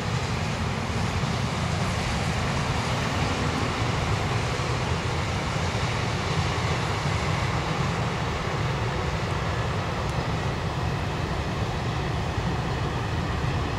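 Freight train's tank and hopper wagons rolling past: a steady deep rumble of steel wheels on the rails, with a fainter hiss above it.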